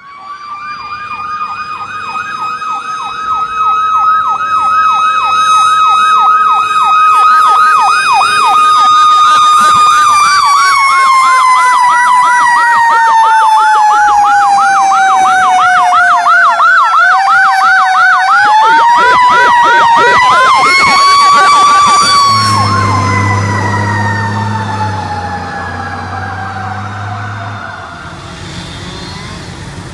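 Fire engine sirens passing close by: a fast electronic yelp over a siren's steady wail. The wail slowly winds down, rises again about 19 seconds in, then winds down as the yelp stops. A low steady hum joins near the end as the sirens fade.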